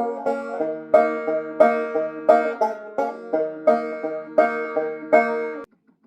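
Banjo played two-finger style: a steady run of picked notes ringing over a droning string. The playing stops abruptly nearly six seconds in as the tune ends.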